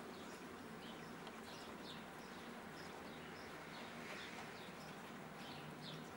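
Faint, repeated short chirps of small birds over a steady hiss of light rain.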